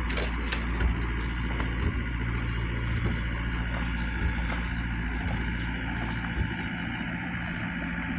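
Excavator's diesel engine running steadily at low revs, with scattered light clicks and knocks.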